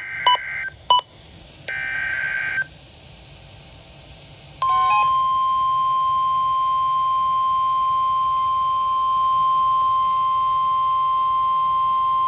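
NOAA Weather Radio emergency alert tones: the last two bursts of the SAME digital header, a harsh warbling data screech about a second long each, with a few short beeps over the first. About four and a half seconds in, the steady 1050 Hz warning alarm tone starts and holds, the signal that a warning (here a tornado warning) is about to be read.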